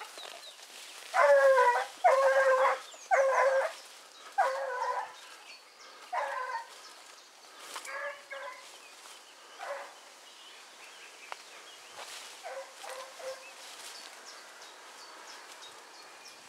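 Hunting dogs baying: five or six loud, drawn-out cries in the first five seconds, then fainter, more scattered ones.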